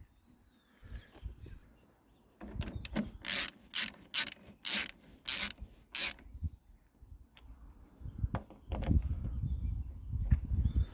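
Hand screwdriver turning the door lock's retaining screws: a run of about ten short scraping strokes, two or three a second, then a low rumbling noise near the end.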